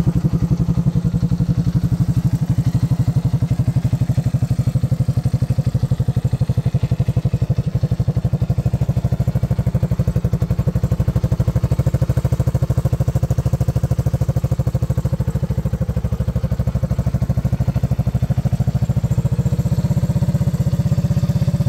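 Honda ATC200S three-wheeler's air-cooled four-stroke single-cylinder engine idling steadily, with an even, rapid putter from the exhaust.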